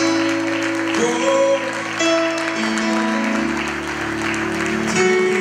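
A congregation applauding over music with long held chords.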